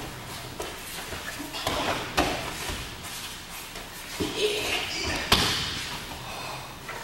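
Thuds and slaps of a person being thrown and breakfalling onto tatami mats, with rustling in between; the loudest thud comes about five seconds in, with another about two seconds in.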